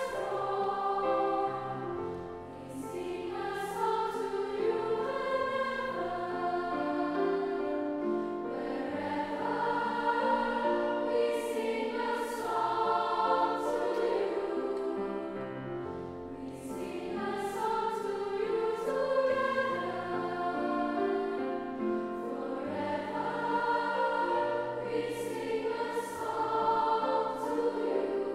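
A large combined treble choir singing, several voices on different notes at once, with held notes and crisp sung consonants.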